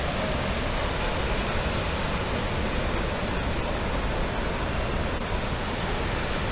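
Large waterfall's steady rush of falling water, an even hiss and rumble with no change in level.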